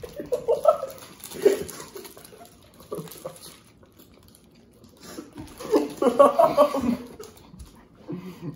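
Muffled laughter and vocal noises from two people eating granola bars at speed, mouths full, over the crinkle of the bars' plastic wrappers being torn open. The loudest laughing comes about six seconds in.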